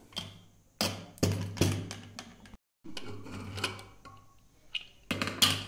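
Aluminium pressure cooker's lid being opened once the cooker has cooled and lost its pressure: a series of sharp metal clanks and knocks, a cluster about a second in and another near the end, over a low steady hum.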